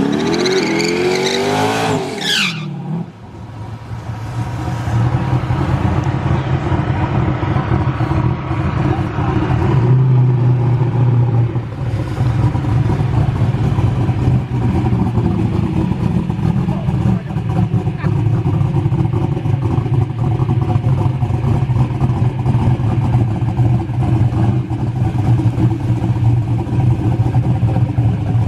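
A car engine revving up, its pitch climbing for about two seconds, then running steadily and loudly at a low, even pitch.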